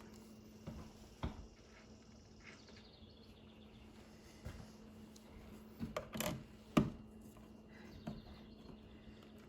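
Scattered light clicks and knocks of small hand work with a screwdriver on wall-plate screws, a few seconds apart, loudest about two thirds of the way through, over a faint steady low hum.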